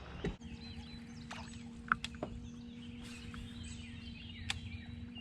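Outdoor ambience on the water: a low rumble with faint bird chirps. A steady low hum sets in abruptly about a third of a second in and runs on, and a few sharp clicks come near 2 and 4.5 seconds.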